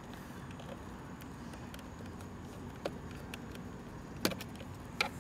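A small pick tool clicking against the heater wire connectors on the plastic back of a VW Jetta side-mirror glass as they are pried off: three sharp clicks in the second half, the middle one the loudest, over a steady low background hum.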